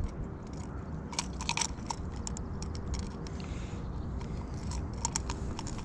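Sharp clicks and small crunching scrapes as a spinning lure's hooks are worked free of a pike's toothy jaw, in a cluster about a second in and again near the end, over a steady low rumble.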